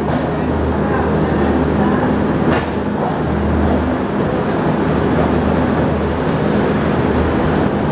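Passenger coaches of an Indian Railways Rajdhani Express rolling slowly into a station, heard from on board: a steady rumble of wheels on track with a low hum underneath.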